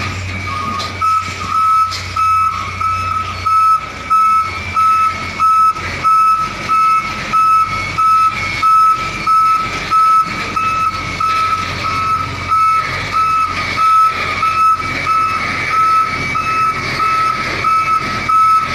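Truck's reversing alarm beeping, a single high tone repeating evenly about one and a half times a second, over the low running of the truck's diesel engine.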